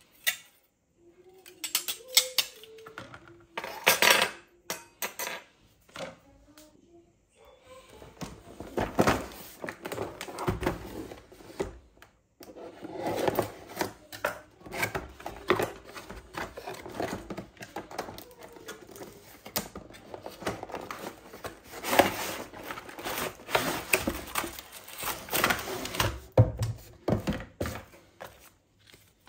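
Stainless-steel round cutter rings clinking and knocking against each other as they are handled. Then a long stretch of rustling, scraping and tapping as a cardboard box is opened and its paper and cardboard packing is handled.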